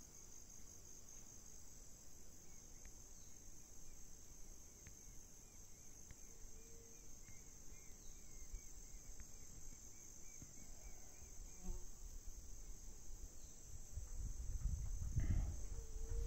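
Insects singing: a steady, high-pitched chorus. A run of faint short chirps comes about twice a second in the first half, and a low rumbling noise grows louder near the end.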